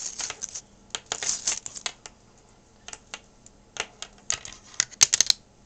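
Handling noise as a bundled black Zune sync cable is unwrapped and uncoiled: irregular rustles and light clicks, with a quick run of sharp clicks about five seconds in.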